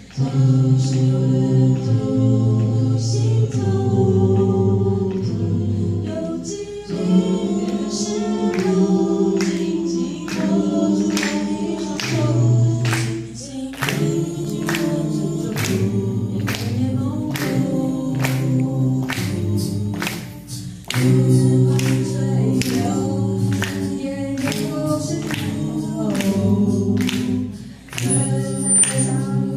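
An a cappella vocal group singing a song in layered harmony, with no instruments. A steady percussive beat, about two strikes a second, joins about a quarter of the way in.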